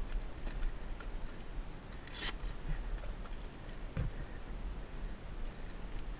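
Hook-and-loop straps on a motocross knee brace being torn open, with one loud rasping rip about two seconds in and shorter rasps and clicks later as the straps and buckles are undone. A steady low rumble runs underneath.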